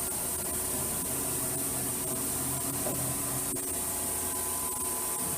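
1998 Okuma Cadet Mate vertical machining center running with a steady hiss and hum, several faint steady tones over it. A low drone underneath drops out about three seconds in and comes back a second or so later.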